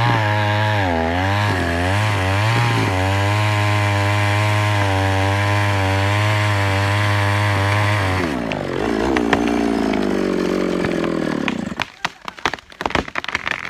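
Chainsaw engine running at high revs, its pitch dipping and recovering several times about one to three seconds in. Past the middle the revs fall away steadily as it winds down, and a scatter of sharp irregular cracks and clicks comes near the end.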